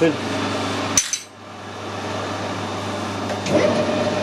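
A sharp click about a second in, then a metal lathe's motor and gearbox start running, with a steady whine setting in about three and a half seconds in.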